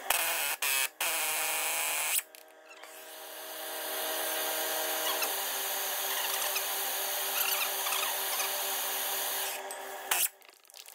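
Impact gun hammering at a seized leaf-spring U-bolt nut for about two seconds, then stopping. A MAP gas torch hisses steadily as it heats the nut, and near the end the impact gun gives one short burst.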